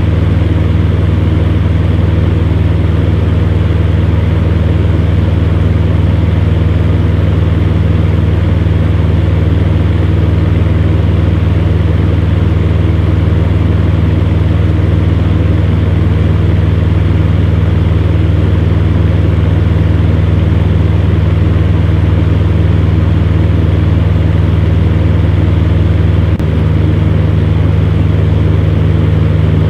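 Electric fan running steadily: a constant low motor hum under a rushing whoosh of air. There is a brief slight dip in level near the end.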